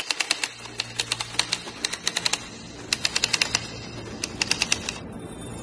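Typewriter keys clacking in about five quick bursts of strikes with short pauses between, over a low steady hum. Near the end the clacking stops and a steady hiss takes over.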